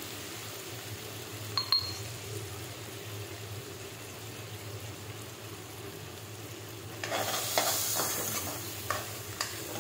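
Chopped tomatoes frying and sizzling steadily in oil in a kadhai, with a steel ladle stirring them. The ladle clinks against the pan once just under two seconds in, and the stirring gets louder, scraping and clinking, from about seven seconds in.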